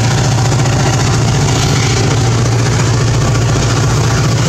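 MTA EMD F40PH diesel locomotive running close by with a steady, loud low drone from its engine, over the rumble of the train moving on the rails.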